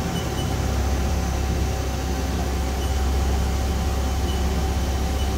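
Steady low machine hum with a thin steady whine above it, from a powered-up Haas VF-3SS CNC vertical machining center. The low hum grows a little stronger at the start.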